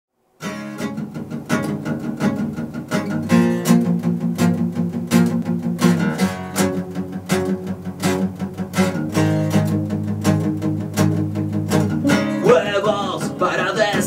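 Rockabilly band intro: strummed acoustic guitar and electric guitar playing a country-style rhythm, with a drum marking a steady beat. A man's voice starts singing near the end.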